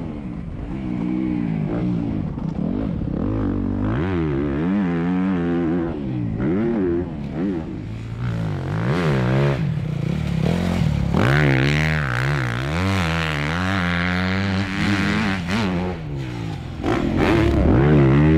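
Honda CRF250R four-stroke single-cylinder engine revving up and dropping back again and again under hard riding, the pitch rising and falling with each burst of throttle.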